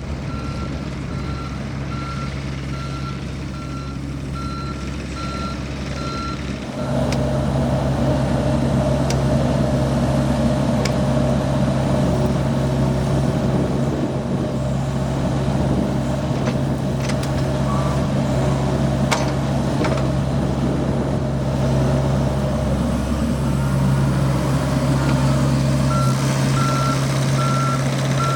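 John Deere 60G compact excavator's diesel engine running, with its travel alarm beeping steadily. About seven seconds in the engine gets louder and the beeping stops, and the beeping starts again near the end.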